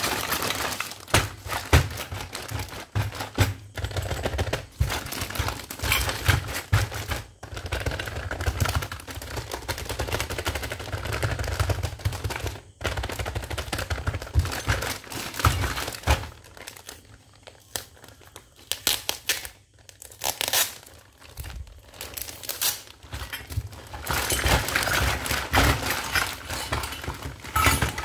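Clear plastic bag crinkling as hands squeeze and shift it, with a bagful of miniature toy kitchen pieces, plastic items and small steel pots, clicking and clacking together inside. It eases off for several seconds past the middle, then picks up again near the end as the bag is opened.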